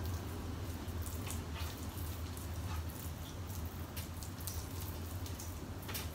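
Steady low hum of an oven fan, with scattered soft clicks and squishes of a spoon spreading mashed sweet potato in a baking pan.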